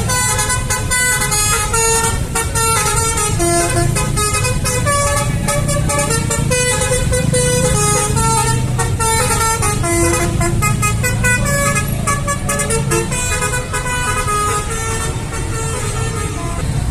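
A tour bus's telolet horn, a multi-tone air horn, playing a quick melody of changing notes over the low rumble of the bus engine. The notes thin out near the end.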